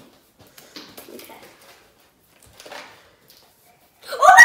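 Faint sticky ticks and rustles of homemade slime being stretched and handled, then near the end a short, loud, high child's exclamation.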